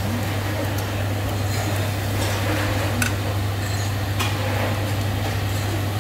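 Food sizzling on a hot tabletop barbecue pan over a steady low hum, with a couple of light clicks of metal chopsticks against the pan about three and four seconds in.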